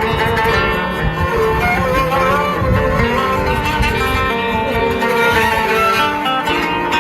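Background music with string instruments: plucked guitar-like strings and a bowed melody line.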